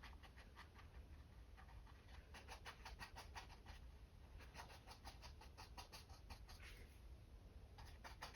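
Mop brush dabbing black acrylic paint onto a stretched canvas: faint quick taps, several a second, in runs broken by short pauses.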